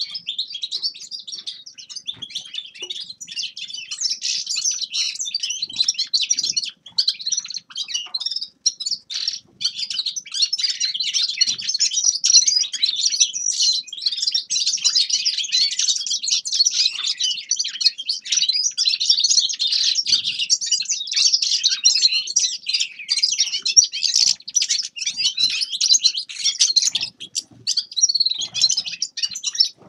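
A finch singing a long, rapid, twittering song of high chirps and trills, with only a few brief pauses.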